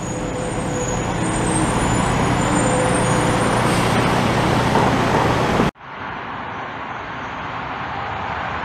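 City road traffic with cars passing close, a steady noise that grows louder. About two-thirds through it cuts off abruptly and gives way to a double-stack container freight train rolling past close by, a steady, quieter rolling noise of wheels on rail.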